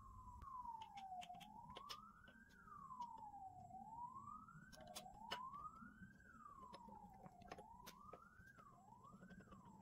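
Faint wailing siren, its pitch sweeping slowly up and down and the sweeps quickening near the end. Scattered light clicks from the lathe's change gears and hex key being handled.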